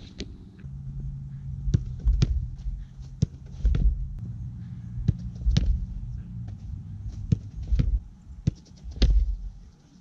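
Football goalkeeping drill: sharp knocks of a soccer ball being kicked by the server and struck, caught or parried by the diving goalkeeper, about one a second, over a low rumble that comes and goes, typical of wind on a goalpost-mounted GoPro's microphone.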